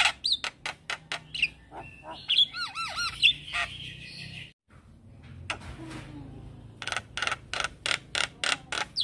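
Javan myna singing: a fast string of harsh, rasping squawks, with a few rising-and-falling whistled chirps a couple of seconds in. The sound breaks off briefly about halfway, then comes back as a quick even series of rasping notes, about four a second.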